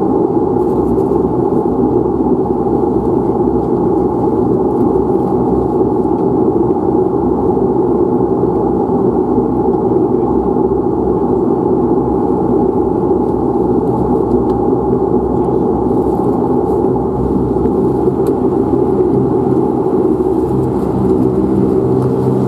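Dash 8 Q400's Pratt & Whitney PW150A turboprop and its propeller running at idle with the aircraft stationary, heard inside the cabin beside the engine as a steady drone with a hum of several steady tones. Near the end the deeper tones grow stronger.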